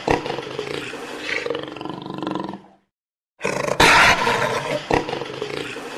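A big cat's roar played on an outro: it dies away and stops a little under three seconds in, and after a short silence the same roar starts again, loudest at its opening.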